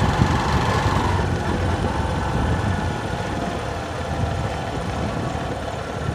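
A vehicle driving along a rough dirt road: a steady engine rumble mixed with road and wind noise.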